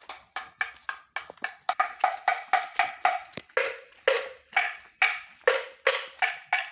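A kohkol, the Sundanese wooden slit drum of the night watch, struck in a quick steady rhythm, about four hollow knocks a second, each with a short ringing note and some landing harder than others.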